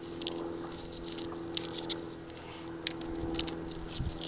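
Small clicks, taps and rustles of hands handling and pressing parts onto a skateboard, over a steady low hum.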